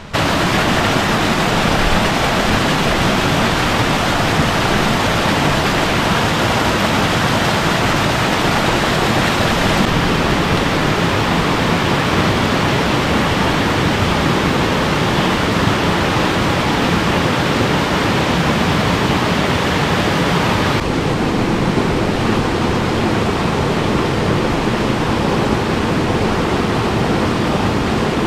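Small mountain-stream waterfall pouring into a rock pool: a loud, steady rush of falling water, its tone shifting slightly about ten seconds in and again about two-thirds of the way through.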